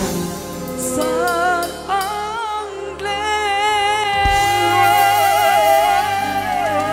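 Singer's voice over instrumental backing: short wavering runs, then one long held note with vibrato from about three seconds in that slides down near the end.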